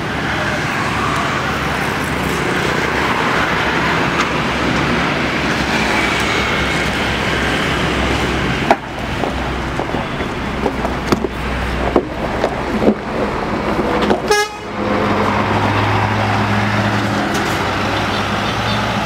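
A Scania K410iB coach's rear-mounted 13-litre six-cylinder diesel running and then pulling away, with toots of the coach horn. A run of sharp knocks falls in the middle. A steady low engine drone carries the last few seconds.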